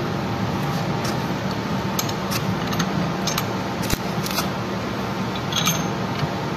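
Light metallic clicks and clinks as the steel mold and clamp parts of a desktop injection molding machine are handled and shifted into position. They come scattered through the middle of the stretch, over a steady low hum.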